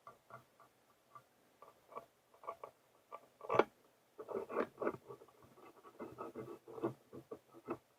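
Small scattered clicks and scratchy handling sounds of screws being set into the bearing mounts under a 3D printer's bed, with a sharper click about three and a half seconds in.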